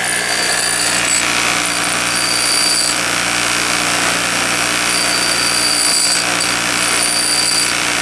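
Bench grinder running steadily, with a thin high whine that comes and goes several times.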